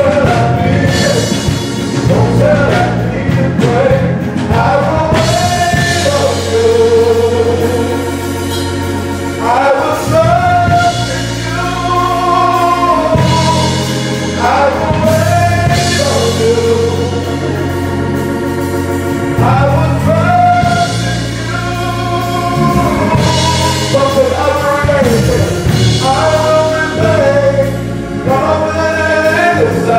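Live gospel worship music: voices singing a slow melody over held instrumental chords and a low bass line.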